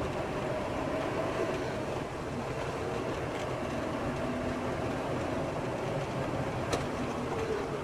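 Steady running noise of a moving vehicle: a rumble with a faint hum, and one sharp click near the end.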